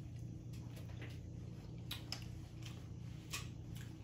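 Boiled crawfish being peeled and eaten: faint, scattered clicks and squishes of shell and mouth noises, a few irregular ones a second, over a low steady hum.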